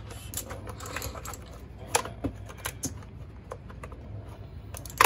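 Plastic clicks and clacks as a black plastic wrist rest is pushed onto the underside of an Azio keyboard and its tabs snap into place, with keys clattering as the keyboard is handled. Scattered sharp clicks, a louder one about two seconds in and the loudest near the end.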